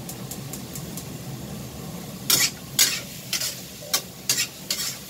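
Spatula scraping and stirring vegetables in a stainless steel wok as they stir-fry over a gas flame, with a faint sizzle. A steady low hum runs underneath, and about halfway through come about six sharp scrapes against the pan.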